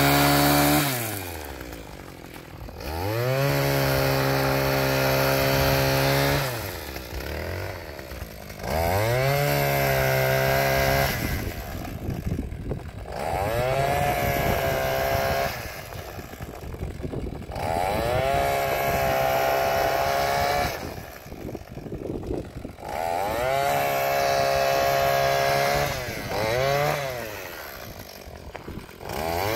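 Echo PAS two-stroke powerhead driving a power paddle sweeper, throttled up and let back down to idle over and over, about six times. Each rev-up climbs quickly to a steady high pitch, holds for two or three seconds, then falls away.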